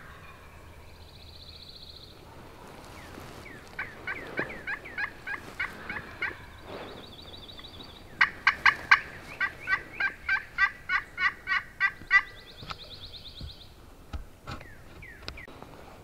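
Turkey calling: two runs of evenly spaced yelping notes, about three or four a second, the second run louder and longer.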